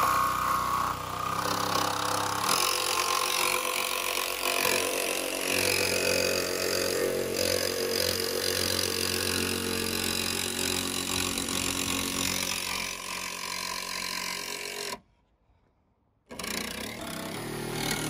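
Cordless jigsaw running, its blade sawing a round hole through a van's sheet-steel side panel. The sawing is steady for about fifteen seconds, stops for about a second, then starts again.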